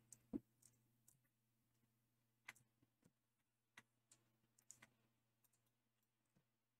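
Near silence broken by a few faint, scattered clicks from a computer mouse, the loudest just after the start.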